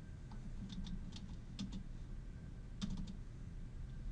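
Computer keyboard keystrokes: a handful of irregular key taps, with a pause of about a second midway, over a faint low hum.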